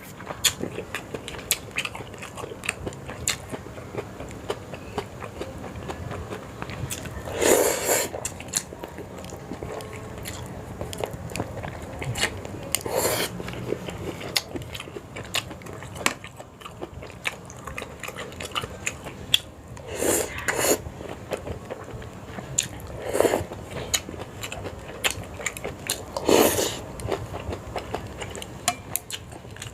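Close-up mouth sounds of a person eating a bowl of Sarawak laksa noodle soup: steady chewing and lip smacks, broken five times by louder half-second slurps.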